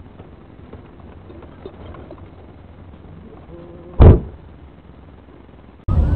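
Dashcam recording of low, steady road and cabin rumble, broken by one loud, short thump about four seconds in. Near the end the sound cuts abruptly to much louder vehicle noise.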